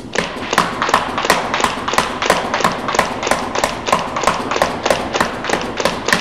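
Planet Eclipse EMF100 magfed paintball marker firing round paintballs in a rapid, even string of shots, about three a second, with the balls striking the target.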